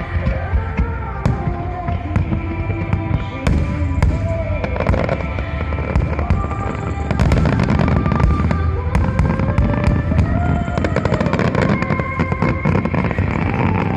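Fireworks bursting and crackling over loud accompanying music with sustained melodic tones. The bangs and crackles come in quick, thickening succession from about halfway through.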